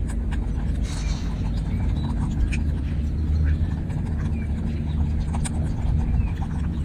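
A steady low rumble, with scattered light clicks and knocks as a baby macaque handles cherry tomatoes in a bowl.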